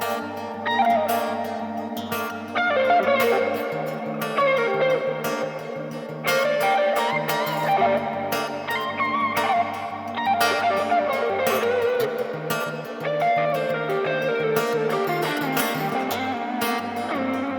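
Band music without singing: a guitar-led instrumental passage with bending melody notes over a steady, pulsing bass line.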